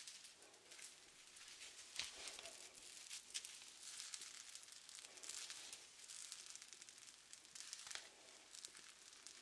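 Faint, close-up crackling and rustling with scattered small clicks, one sharper click about two seconds in.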